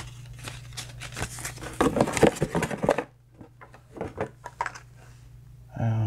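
Paper leaflets and cardboard packaging handled: rustling with sharp clicks and taps, busiest and loudest about two seconds in, then a few lighter taps as the handling quietens.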